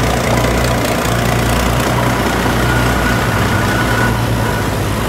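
Heavy diesel engines of a tracked rice combine harvester and a towing truck running steadily with a low drone while the stuck harvester is hauled out of the mud.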